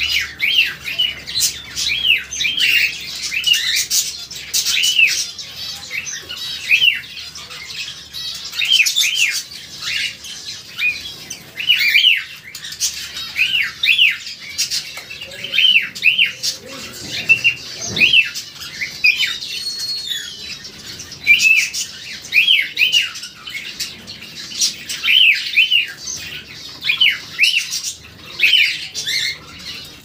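Red-whiskered bulbul mimicking a cockatiel's call: short whistled notes that rise and fall, repeated one or two a second, with fainter chirps from other birds behind.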